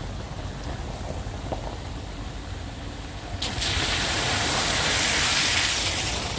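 Suzuki Jimny JB74 driving with a low rumble, then about three and a half seconds in a loud hiss of water spray as it splashes through water, lasting about three seconds.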